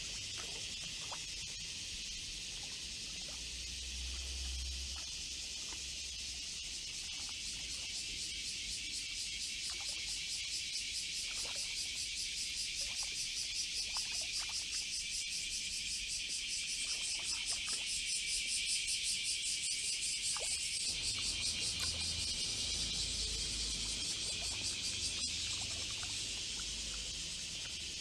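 Cicada song: a high, buzzing drone that turns into a fast, even pulsing rhythm partway through, grows louder, then eases off near the end.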